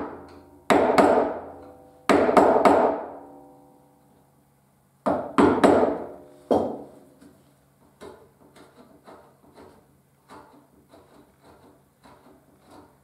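Carving gouge struck with a round wooden carver's mallet into cherry wood: groups of two or three sharp blows, each group ringing on for a second or so. From about two-thirds of the way in, only quieter small ticks and scrapes as the gouge is pushed by hand, three or four a second.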